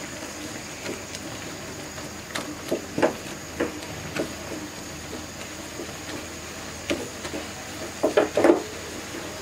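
Spatula scraping and knocking against a metal pan while stirring rice flour into simmering spiced water to make a thick dough. The strokes come irregularly, with the loudest quick run of knocks near the end.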